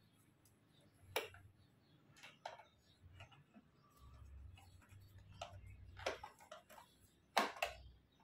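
Irregular, faint clicks and knocks of a screwdriver driving a screw into the metal leg of a plastic baby high chair, with the sharpest knocks near the end.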